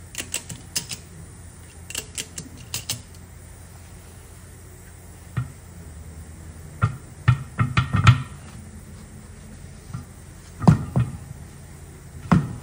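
A small tractor tire on its rim, with a ratchet strap around it, being handled: a run of sharp clicks in the first few seconds, then a cluster of dull thumps and knocks around the middle and two more thumps near the end, over a low steady hum.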